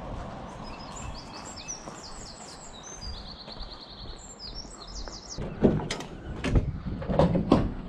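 Songbirds singing, with quick high chirps and a fast trill, over steady outdoor background noise. From about five and a half seconds in, a run of loud knocks and thumps.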